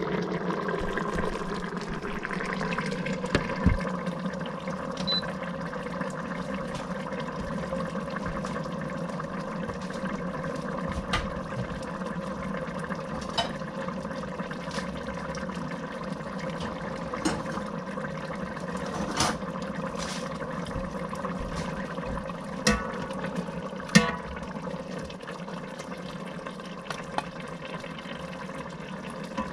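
Chili casserole bubbling steadily in an electric pressure cooker on its sauté setting, over a steady hum. Scattered sharp clinks of a ladle and dishes, the loudest about 24 seconds in.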